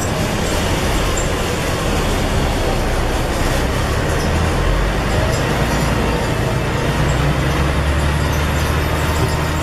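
Scania N113 bus's rear-mounted straight-six diesel engine running under the cabin's road and body noise as the bus drives along. The engine note grows louder and fuller about seven seconds in.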